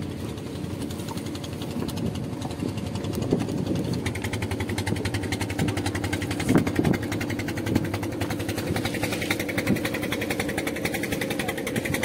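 A boat engine running steadily at idle with a fast, even beat, and a few light knocks about halfway through.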